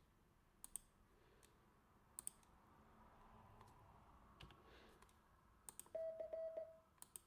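A few faint clicks, then near the end a Morse code practice tone: a single steady-pitch beep keyed in quick long and short elements. The program plays the letter C (dah-dit-dah-dit) again instead of the intended D.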